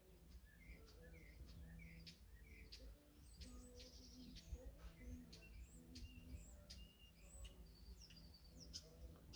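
Faint songbirds chirping and singing: many short, scattered notes and a quick series of rising chirps in the first couple of seconds, over a low steady background hum.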